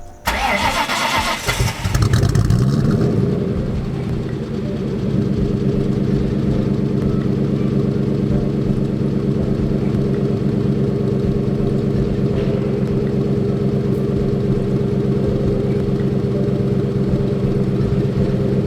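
Ford 4.6 four-valve DOHC V8 in a Mustang GT, starting up through its welded-up exhaust. It cranks and catches about two seconds in, flares up in revs, then settles into a steady idle.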